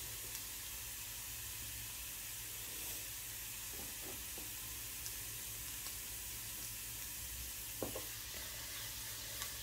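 Cumin seeds, chopped garlic and ginger sizzling steadily in hot oil in a small pan: a tadka frying until the spices turn red. A few faint clicks sound over the even sizzle.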